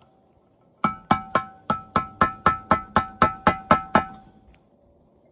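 About a dozen quick, ringing strikes on the old TV's hard parts, roughly four a second, each leaving a held ringing tone, as the back is loosened up for scrapping.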